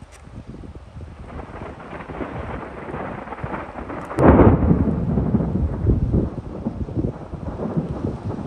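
Thunder: a low rumble builds, then a loud crack and boom comes about four seconds in and rolls on to a long rumble.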